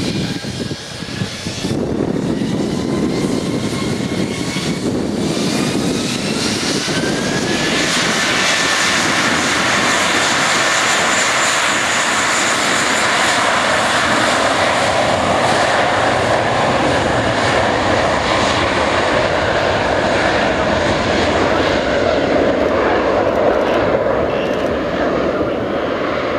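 Airbus A320's twin IAE V2500 turbofans spooling up for takeoff, with a whine that rises over the first several seconds. It then settles into the loud, steady rush of takeoff thrust as the jet rolls away down the runway.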